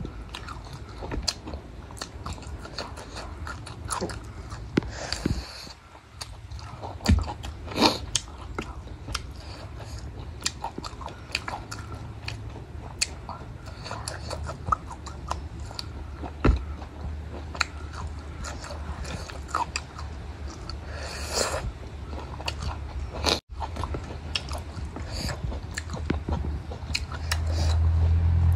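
Close-up sound of a person biting and chewing cooked mutton goat head: many short, irregular sharp mouth and bite sounds over a steady low hum. A low rumble rises near the end.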